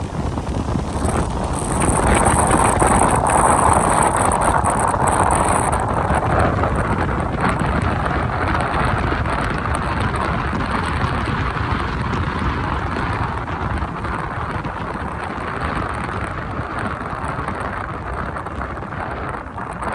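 Steady rushing noise of wind on the microphone mixed with traffic on rain-soaked roads, swelling for a few seconds about two seconds in.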